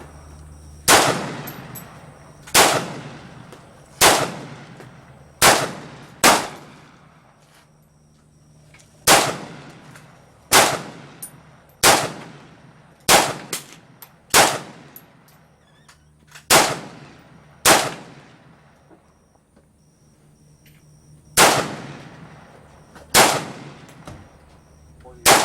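Yugoslavian AK-47 rifle fired in single shots, about sixteen in all, unevenly spaced one to two seconds apart, each with a ringing tail, with a pause of a few seconds before the last three.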